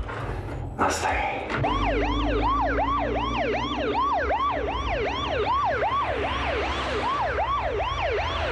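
An emergency-vehicle siren in fast yelp mode, its pitch sweeping up and down about three times a second. It starts about a second and a half in, over a steady low rumble. A sharp knock comes just before it.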